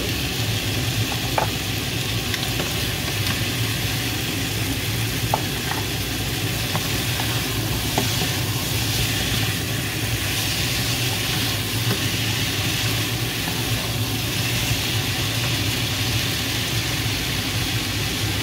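Pork belly, onions and tomatoes sizzling in a frying pan while a wooden spatula stirs them, with a few light clicks of the spatula against the pan. A steady low hum runs underneath.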